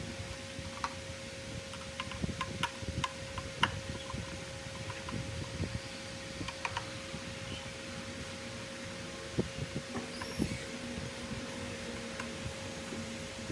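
Scattered light clicks and knocks, several close together in the first few seconds and again about two thirds of the way in, over a steady hum and a low rumble.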